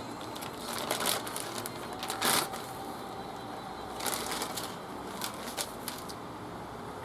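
Irregular clicks and rattles of hand work, loudest about two seconds in.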